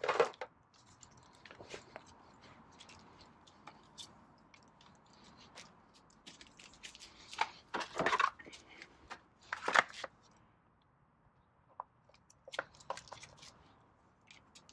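Handling noises from a battery charger and its cable and leads being set out and hooked up: scattered plastic clicks, light knocks and cable rustling, with a few louder clatters.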